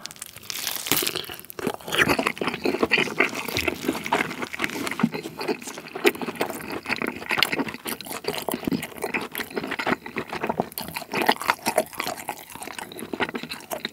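Close-miked chewing of a big bite of grilled tomahawk steak, a steady run of small smacks and clicks from the mouth.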